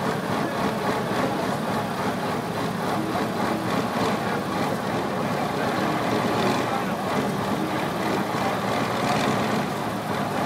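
Scania V8 truck engine running steadily, with people talking over it.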